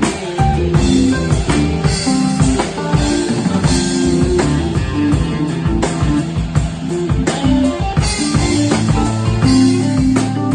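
Rock band jamming live: guitar playing over a drum kit, with frequent drum hits, improvising at a sound check.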